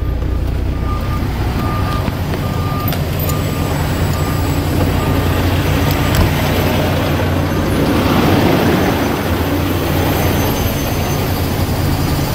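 Kenworth T660 semi truck's diesel engine idling steadily, with an electronic warning beeping about twice a second for the first few seconds, typical of a low-air-pressure alarm on a truck that will not build air. Then the cab door opens and a rushing hiss swells up outside, loudest about eight seconds in.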